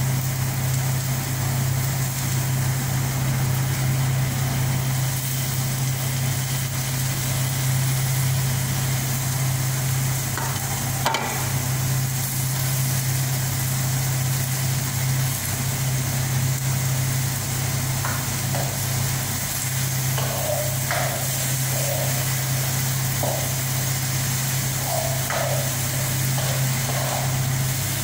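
Kitchen range hood fan running with a steady low hum, over faint sizzling from the pan. A sharp metal clank comes about eleven seconds in, and a few short scrapes and clinks of a cooking utensil in the pan follow in the second half.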